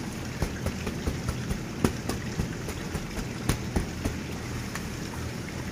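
Irregular light taps and crackles as gloved hands press and smooth coco peat into a plastic seedling tray, over a steady background hum. The sharpest taps come about two seconds in and again about halfway through.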